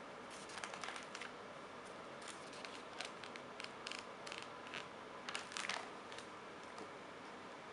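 Glossy magazine paper being handled and a page turned, a string of short rustles and crinkles, the loudest a little past the middle.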